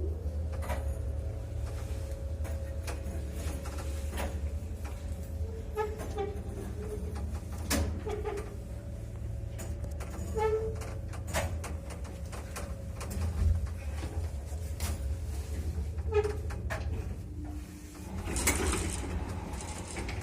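1983 MLZ passenger lift travelling: a steady low hum with a steady whine, broken by short squeaks and a few clicks. Near the end the whine stops and a louder clatter follows.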